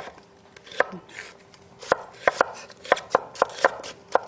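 Kitchen knife slicing an onion into strips on a wooden cutting board: sharp knocks of the blade on the board, one just under a second in, then a quick, uneven run of them from about two seconds in.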